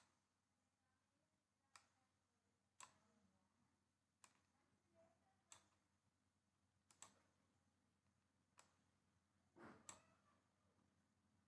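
Faint computer mouse clicks: about eight single clicks spaced a second or so apart, with a brief scrape just before the last one, over near silence.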